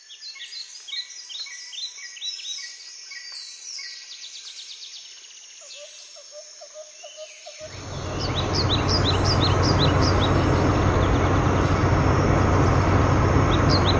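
Birds chirping and tweeting in a woodland ambience. About halfway through, an off-road buggy's engine rumble comes in, swells and runs steadily and loudly over the birds.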